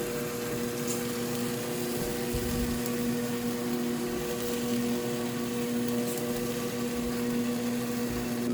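Electric KitchenAid cooker running its motor, a steady even hum while it cooks the fried rice.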